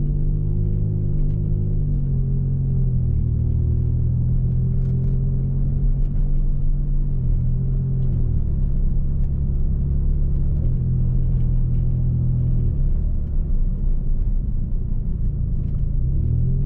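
A 1993 Mazda MX-6's engine heard from inside the closed cabin while driving at low speed: a steady low drone whose pitch rises and falls a little a few times.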